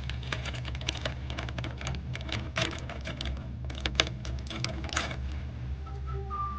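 Irregular light clicks and taps close to the microphone over a low steady hum, with a steady high note starting near the end.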